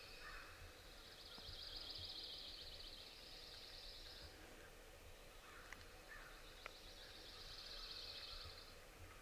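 Faint songbird trills: two long, rapid, high-pitched trills, the first lasting about four seconds and the second about two seconds near the end, over quiet woodland ambience.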